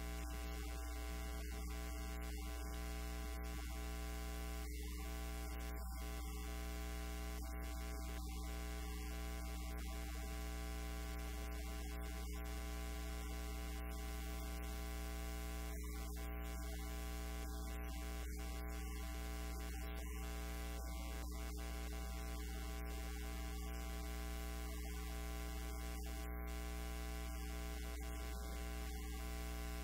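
Steady electrical mains hum with a stack of buzzing overtones and a constant static hiss, unchanging throughout, with no speech coming through. It is a fault in the recording's audio.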